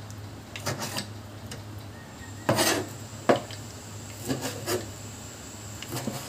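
Kitchen knife cutting goat offal on a plastic cutting board: a handful of rasping strokes of the blade scraping the board, with one sharp knock of the knife a little past three seconds in.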